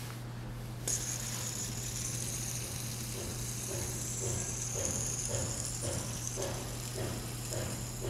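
Red ABS tri fidget spinner on a stainless steel bearing flicked into a spin about a second in, then spinning with a steady high whir. From about three seconds in, a soft knocking comes about twice a second.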